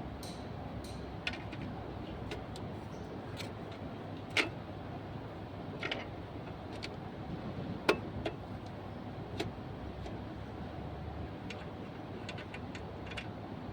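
Scattered light metallic clicks and clinks of tools or parts being handled, two louder ones about four and eight seconds in, over a steady low background hum.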